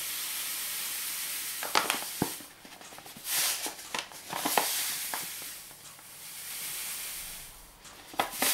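Granulated sugar pouring from a paper bag into a glass jar of plums, a steady hiss that stops about two seconds in. Then come a few light knocks and several short hissing bursts as more sugar is shaken out of the bag.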